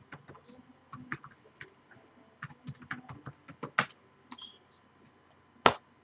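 Typing on a computer keyboard: irregular, scattered keystrokes, a few of them louder.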